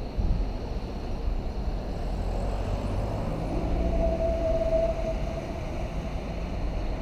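Urban street ambience: a steady low rumble of distant traffic and rail vehicles, with a steady mid-pitched tone lasting about a second and a half from about four seconds in.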